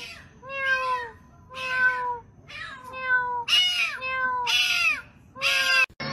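A black-and-white cat meowing over and over: about nine short meows in quick succession, each sliding down in pitch.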